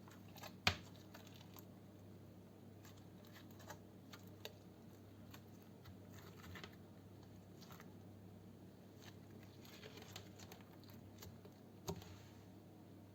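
Slime being handled close to the microphone: faint, scattered small clicks and crackles over a steady low hum, with one sharper click about half a second in and another near the end.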